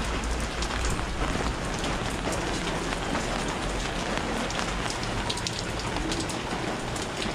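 Steady rain falling, a dense patter with many separate drops striking close by.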